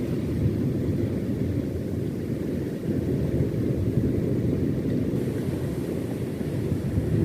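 Wind buffeting the microphone: a steady low rumble with no clear pitch.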